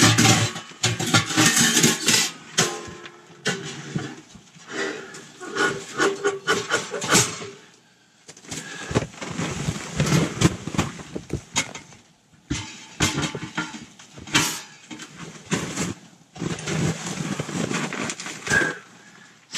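Stainless steel stovepipe sections for a G-stove wood stove clanking, scraping and rattling as they are handled and fitted together. The clanks come in irregular clusters, some of them ringing briefly, with short pauses between.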